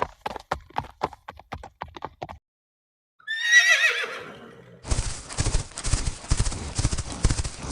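Horse hooves clip-clopping at a steady pace, then a short gap and a horse whinnying once, about three seconds in. About five seconds in, fast galloping hoofbeats start and keep going.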